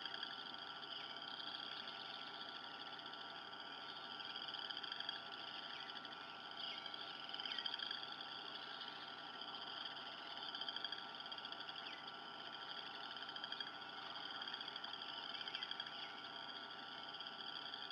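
High-pitched animal calls, trilling and rising and falling, repeating every couple of seconds over a steady hum.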